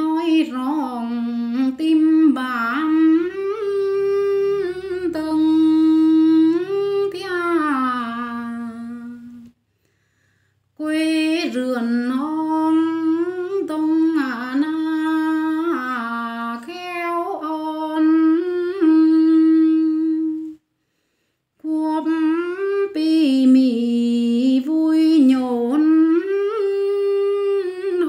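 A woman's solo voice singing a slow melody in long held notes that slide up and down, in three phrases broken by brief pauses about ten and twenty seconds in.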